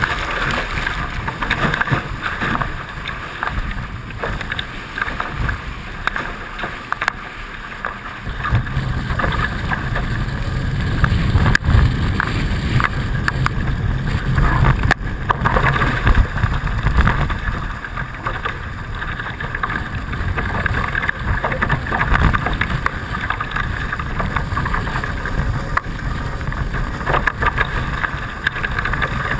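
Hobie 16 catamaran under sail: a steady rush of water along the hulls, with wind buffeting the microphone. The buffeting gets much heavier about eight seconds in.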